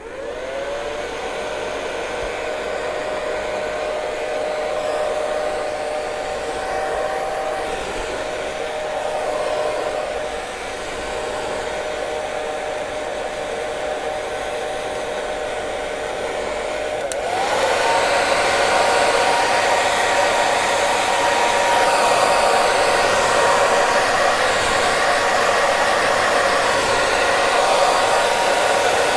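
Hair dryer switching on, its motor whine rising as it spins up, then blowing steadily. About two-thirds of the way through it jumps louder, and the whine settles at a higher pitch, as on a higher speed setting.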